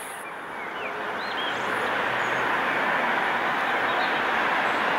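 Peppercorn A1 Pacific steam locomotive 60163 Tornado approaching with its train of coaches: a rushing rumble that grows louder over the first two seconds or so, then holds steady. A few faint bird chirps come in the first second or two.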